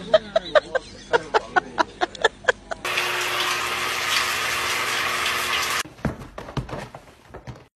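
Shower water running in a steady hiss for about three seconds in the middle, starting and stopping abruptly. Before it comes a quick series of short pitched sounds, about three a second, and after it a few soft knocks.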